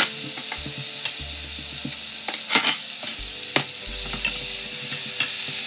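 Minced pork and garlic sizzling in hot oil in a nonstick frying pan while a spatula stirs it. Scattered clicks and scrapes of the spatula against the pan sound over the steady sizzle.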